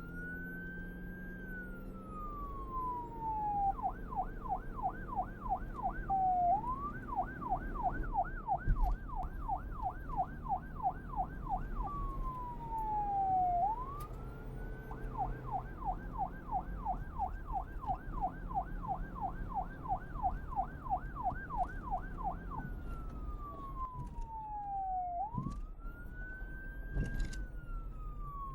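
Police car electronic siren switching back and forth between a slow wail, a long falling and rising sweep, and a fast yelp of about three sweeps a second, with the vehicle's engine running underneath. A single brief thump about nine seconds in.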